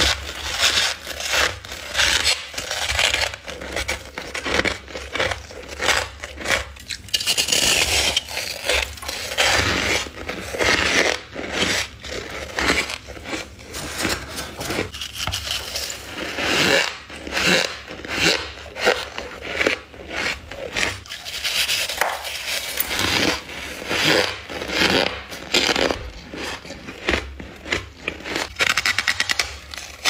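Humidifier-grown freezer frost crunched and squeaked between the teeth in a quick, irregular run of bites and chews, each crunch lasting under a second.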